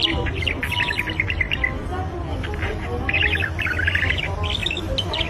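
A parrot chirping and chattering in quick, high runs: one long run at the start, another about three seconds in, and a few short chirps near the end. A steady low hum sits underneath.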